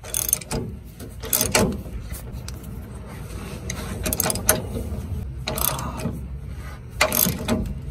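Ratchet wrench clicking in several short bursts as a socket turns the lower mounting bolt of a 1994 Ford F-150's rear shock absorber.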